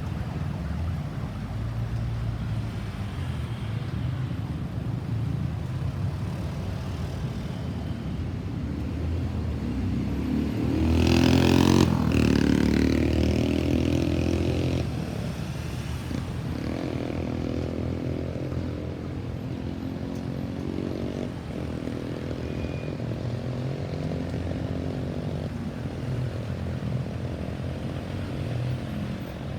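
Road traffic with engines running steadily. One vehicle passes close and loud from about ten to fifteen seconds in, its engine pitch rising and then falling. After it, an engine accelerates with a gently rising pitch.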